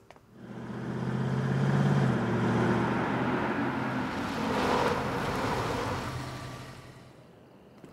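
A car driving past: its engine hum and tyre noise swell up over about two seconds, hold, then fade away near the end.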